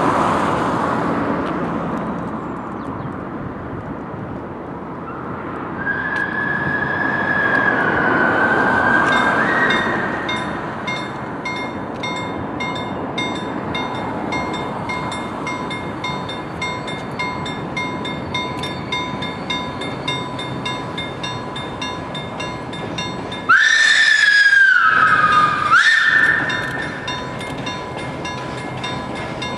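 Level-crossing warning bells ringing steadily and rapidly as the Hr1 'Ukko-Pekka' steam locomotive approaches. The locomotive's steam whistle blows twice: a fainter blast about six seconds in, and a loud blast near the end whose pitch drops and then jumps back up. A car drives past at the start.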